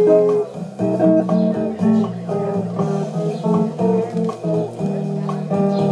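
Solo guitar playing an instrumental break in a samba rhythm: single plucked melody notes over chords and a bass line.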